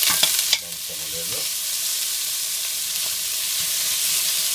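Sliced onions and garlic sizzling in hot olive oil in a stainless steel pan while a metal spoon stirs them. The spoon clicks and scrapes against the pan during the first half second, then a steady sizzle.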